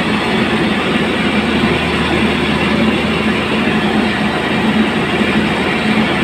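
Truck-mounted mobile rice mill running steadily: its engine and belt-driven milling machinery make a loud, even mechanical din while milling palay into rice.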